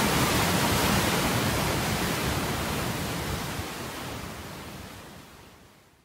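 Flooded river surging out below a dam's open gates: a steady rush of churning whitewater. About two seconds in it begins to fade, dying away to silence by the end.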